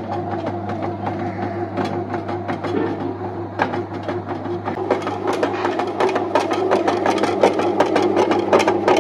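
Bread-machine-style dough kneader running, its motor humming steadily while the paddle turns a ball of roti dough in the pan. A clatter of clicks and knocks grows denser from about five seconds in. The dough is at the end of kneading and nearly ready.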